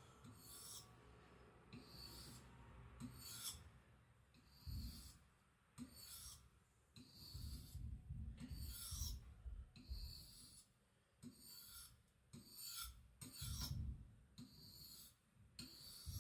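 Knife edge slicing through thick paper, faint short hissing strokes about once a second, testing whether a burr is left at the tip.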